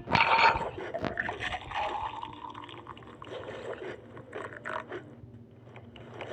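Wet chewing and mouth sounds of a person eating: irregular small clicks and smacks, loudest in the first half-second.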